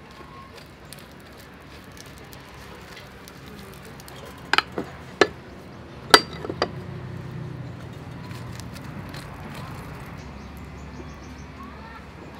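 A hinged metal egg-waffle pan being handled over a charcoal stove: a handful of sharp metal clinks and knocks between about four and seven seconds in, the loudest a little after six seconds.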